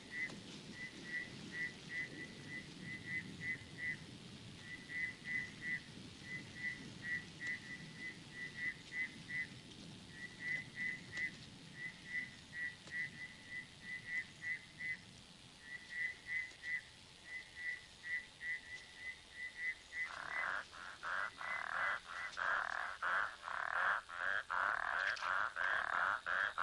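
Frogs calling: short chirps repeated in quick clusters of a few at a time. About twenty seconds in, a louder, denser chorus of rapid pulsed frog calls takes over.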